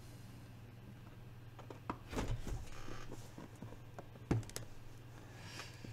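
Cardboard LEGO box being handled and opened: scattered scrapes and rustles, a short rasping tear about two seconds in, and a sharp knock a little after four seconds, over a steady low hum.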